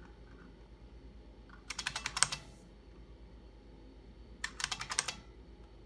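IBM Model F buckling-spring keyboard being typed on: two quick bursts of sharp clacking keystrokes, about two and a half seconds apart, as a short file name is entered.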